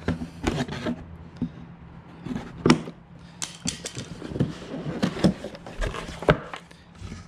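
Scissors cutting the plastic strapping bands on a cardboard box, then the cardboard flaps being pulled open, with scattered sharp clicks and knocks; the loudest comes nearly three seconds in.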